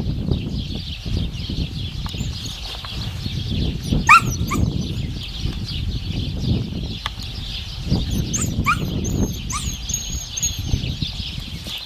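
Short rising animal yelps in two brief clusters, about four seconds in and again near nine seconds, over a steady background hiss and low rumble.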